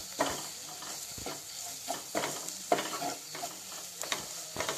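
Perforated spatula scraping and stirring onion-tomato masala with chilli and coriander powder as it fries in oil in a kadai: repeated scraping strokes over a steady sizzle, the spices being cooked until their raw smell goes.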